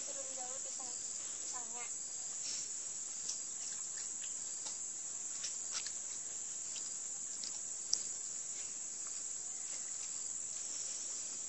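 Steady high-pitched insect chorus outdoors, with a few light scattered clicks, the sharpest about eight seconds in.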